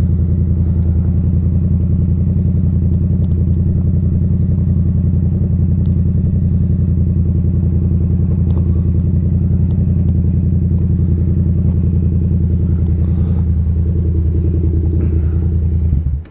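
Vehicle engine idling steadily at an even pitch, then switched off just before the end.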